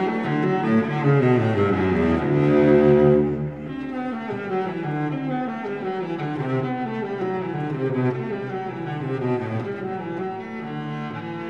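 Instrumental background music, several melodic lines moving in steps; it drops noticeably in loudness about three and a half seconds in.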